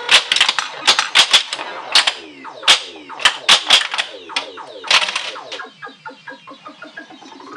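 1980 Williams Black Knight pinball machine in play: loud, sharp clacks of its flippers and solenoids mixed with the game's electronic sound effects, a string of quick falling-pitch chirps. The loud clacks stop about two thirds of the way in, leaving fainter rapid ticks and chirps.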